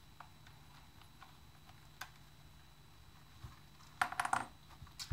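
Light plastic clicks from small RC car parts being handled: a single click about two seconds in, then a short cluster of clicking and rattling about four seconds in.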